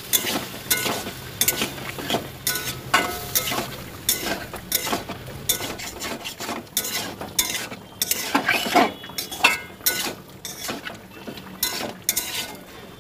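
A spatula scraping and clacking against a kadai as soya chunks and potatoes are stirred, in irregular strokes a few times a second. The food sizzles in the pan beneath.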